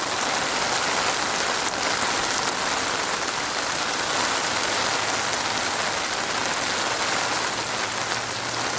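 Steady rain falling, an even hiss of many drops with no breaks or gusts.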